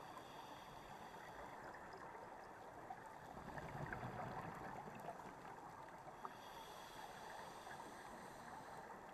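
Faint, muffled underwater noise picked up through a camera's waterproof housing: a steady rushing hiss, swelling a little about three to four seconds in.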